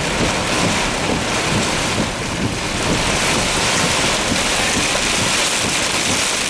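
Heavy thunderstorm rain and strong wind beating on a vehicle's roof and windshield, heard from inside the car as a steady, unbroken rush.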